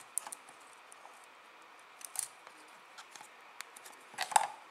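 Small plastic clicks and taps from fingers handling a Canon Vixia HG20 camcorder's LCD screen and its housing: a few light clicks, then a louder cluster of clicks near the end.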